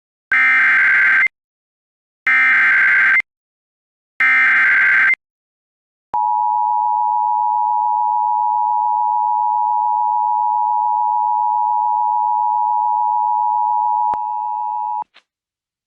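Emergency Alert System SAME header: three short bursts of digital data screech about two seconds apart, then a steady alert attention tone held for about eight seconds, which drops slightly in level and cuts off about a second before the end.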